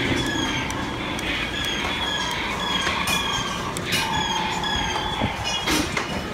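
Boat of a dark water ride moving through its channel: a steady rush of water and machinery noise with short, high, falling squeaks repeating about twice a second, and a steadier whine joining in about four seconds in.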